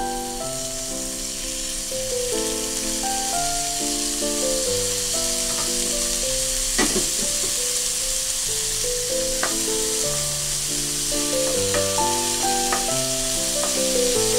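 Asparagus spears sizzling steadily in a hot frying pan, with a few sharp clicks along the way, under background music with a stepping melody.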